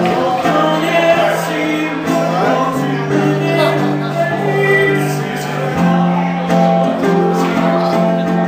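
A man singing and strumming an acoustic guitar in a live solo performance, with held low chords under a wavering vocal line.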